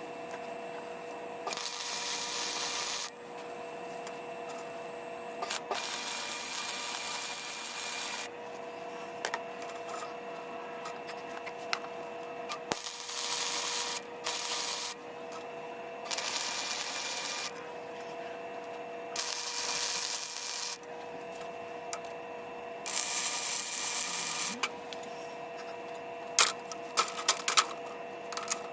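Electric arc welding in short bursts: about six welds of one to two seconds each, each a steady crackling hiss, with a steady hum between them. Several sharp clicks and knocks near the end.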